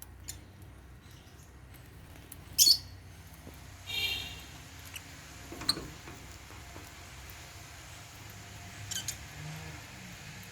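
African lovebirds giving a few short, high-pitched chirps and squeaks: the loudest about two and a half seconds in, a longer call around four seconds, and more near six and nine seconds, over a faint low hum.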